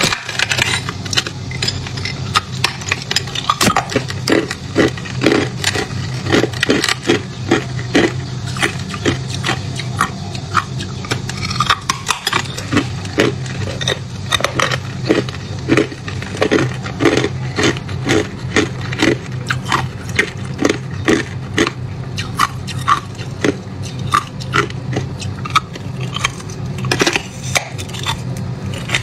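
Teeth biting and chewing a hard, frosted block of ice: a steady run of sharp cracks and crunches, several a second, over a low steady hum.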